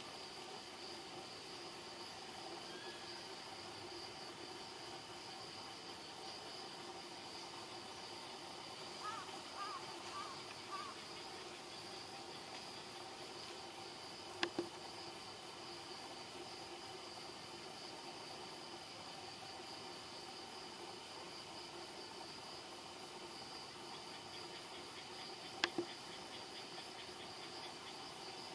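Steady chorus of crickets and other insects, several trilling tones held together with a fast even pulsing on top. A few short faint chirps come about a third of the way in, and two sharp clicks stand out, one near the middle and one near the end.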